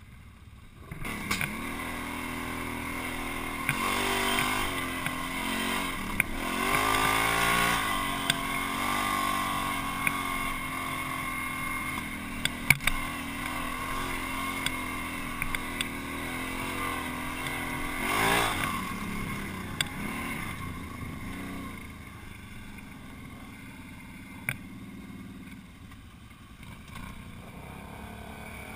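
ATV engine running under way, revving up and easing off several times, with a few sharp knocks as the machine jolts over rough ground. It gets quieter near the end.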